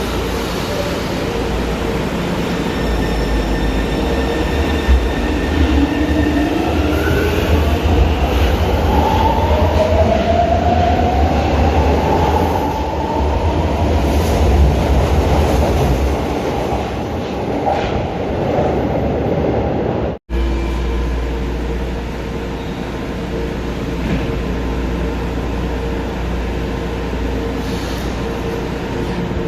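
São Paulo Metro train 218 pulling away from a station: its traction motors and inverter whine, rising in pitch as it gathers speed, over a low growl from a reduction gearbox that is probably short of lubrication. About two-thirds of the way through, the sound cuts out for an instant and a second departure follows with a steadier whine.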